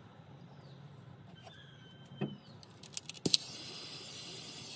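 Handheld butane torch clicked alight by its igniter about three seconds in, then hissing steadily as its flame burns, used to solder and heat-shrink a wire join. A few light knocks from handling the wiring come before it.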